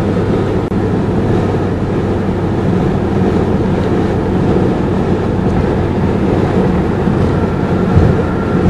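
In-cabin sound of a 1990 Mercedes-Benz 300D 2.5 cruising on the highway at about 60 mph. The five-cylinder turbodiesel drones steadily under road and wind noise. A brief thump comes near the end.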